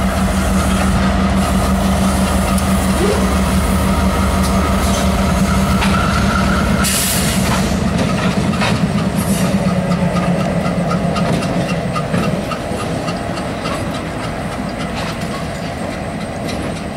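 Diesel train passing close by: the locomotive's engine drone dies away after about ten seconds, leaving the cars rolling past with a steady rhythmic clicking of wheels over rail joints. A brief hiss sounds about seven seconds in.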